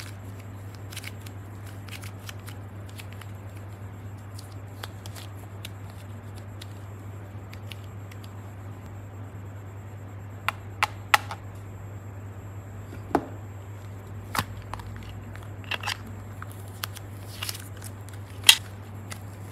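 Hands handling soft play clay and plastic ice-pop moulds: scattered sharp clicks and crackles, sparse at first and more frequent in the second half, over a steady low hum.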